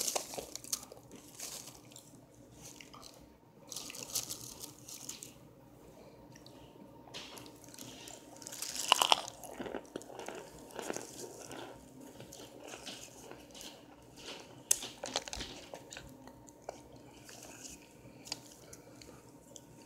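Someone biting and chewing chunks of compressed cornstarch: crisp crunches in scattered clusters with quieter chewing between them, the loudest cluster about nine seconds in.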